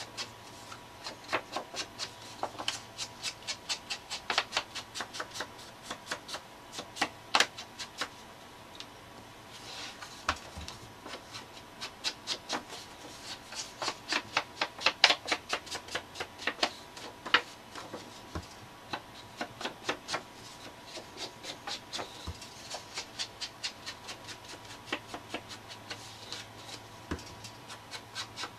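Rapid light tapping and rubbing of a small ink pad against the edges of paper tags while inking them, several taps a second with a couple of short pauses.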